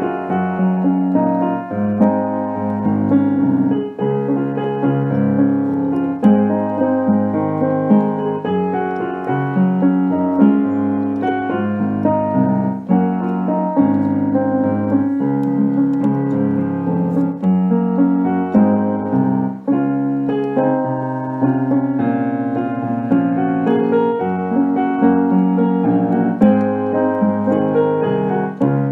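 Instrumental piano music: a keyboard playing held chords under a slow melody, with no singing.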